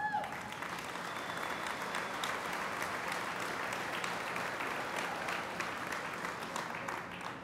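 Large audience of factory workers applauding in a hall: steady, dense clapping that starts right away and eases off near the end.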